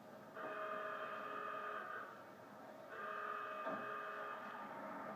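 Fire station alarm sounding in long repeated blasts, a steady chord of tones about one and a half seconds on and half a second off, calling the crew to turn out. A single knock comes near the end.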